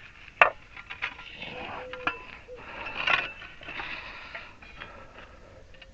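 Metal parts being handled and set down: a sharp clink about half a second in, then lighter knocks and scrapes. A dove cooing in the background about two seconds in.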